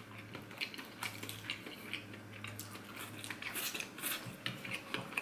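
A person chewing a bite of crispy, sugar-coated Korean cheese corn dog: faint, scattered crunching crackles.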